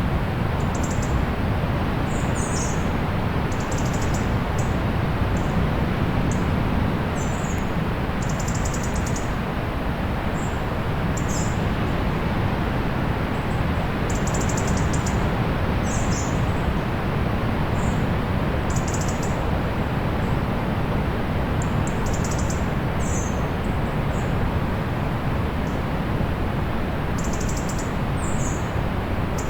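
Steady wash of distant sea surf, with small birds chirping over it in short, high calls every second or two.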